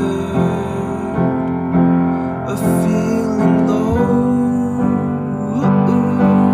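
Music: a song with piano accompaniment, in an instrumental stretch between sung lines.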